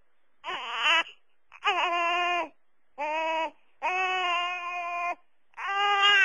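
Newborn baby crying in five wails in a row, each about a second long with short gaps between.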